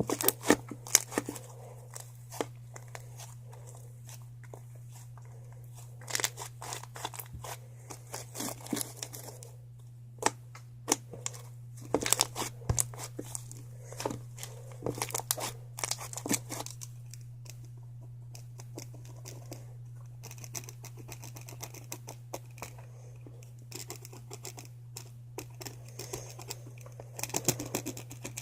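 Slime being worked by hand, giving bursts of crackling and clicking pops with pauses between them, over a steady low hum.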